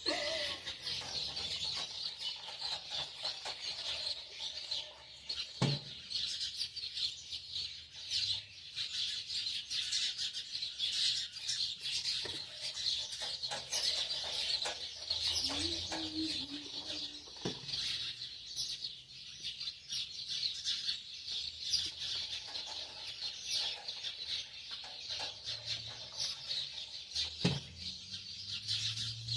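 Many small birds chirping and twittering continuously, with three sharp knocks spread through and a brief lower call about halfway.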